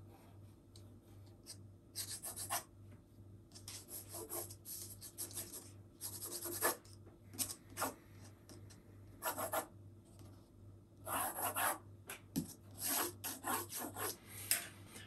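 Graphite pencil scratching on drawing paper as light construction lines are sketched, in short, irregular strokes with pauses between them. A faint steady hum lies underneath.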